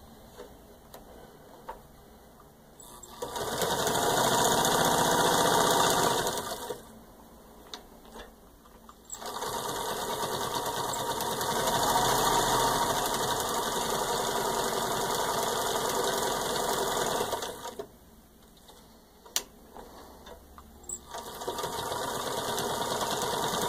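Belt-driven electric 1940 Singer 66-16 sewing machine stitching through six layers of denim. It runs in three stretches, a short one, a longer one of about eight seconds, and another starting near the end, with quiet pauses in between.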